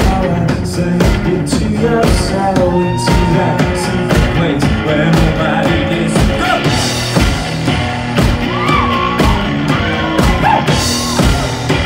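A live rock-and-roll band playing: electric guitar and a drum kit keeping a steady beat, with a man singing over them.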